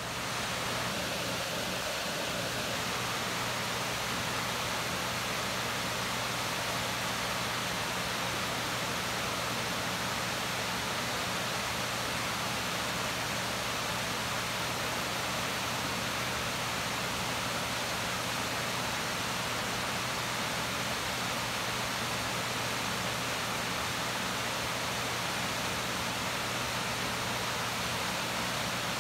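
A small waterfall cascading over rock ledges into a pool: a steady, even rush of falling water.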